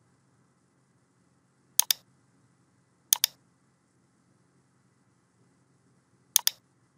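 Computer mouse clicking three times, each time a quick pair of clicks, with a faint hum between.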